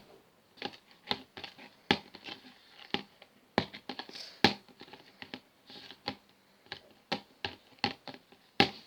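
Freshly made glue-and-borax slime being worked by hand: irregular small sticky clicks and squelches, two or three a second. The slime is a little runny.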